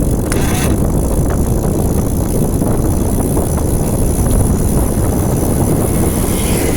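Bicycle coasting on Mavic SLE wheels, a recording of an abnormal noise while freewheeling, over a steady loud rumble of wind and road noise with a thin high whine.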